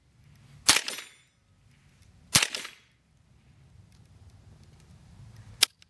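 Three .22LR rifle shots from a Smith & Wesson M&P Sport AR-15 running a CMMG .22LR conversion kit, the first two about a second and a half apart and the third about three seconds later. The rifle is fired with its magazine pressed on the ground as a monopod, which makes the kit jam; the string ends in a stovepipe failure.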